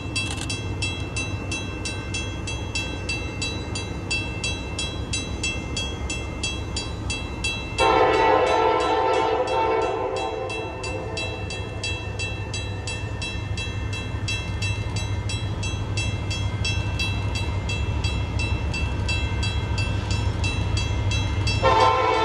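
Diesel freight locomotives working up a grade in the distance, a steady low rumble, while the lead locomotive's multi-chime air horn gives one long blast about eight seconds in and starts another near the end. A fast, even, high-pitched ringing repeats throughout.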